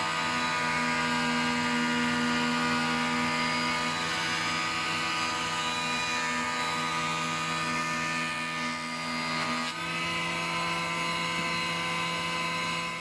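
Jointer (surface planer) running as a beech board is fed over its cutter block and planed flat: a steady whine of many tones over a high hiss. The sound changes slightly about ten seconds in.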